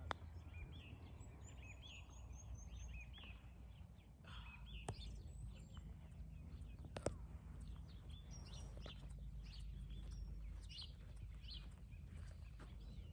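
Many small birds chirping and whistling over a low steady background rumble, with a few sharp clicks, the loudest about seven seconds in.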